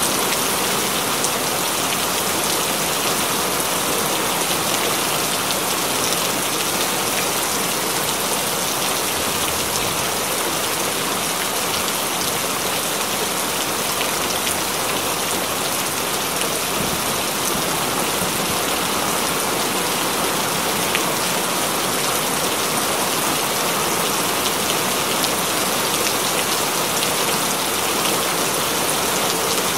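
Steady rain falling, an even hiss without let-up, with a few faint ticks of single drops.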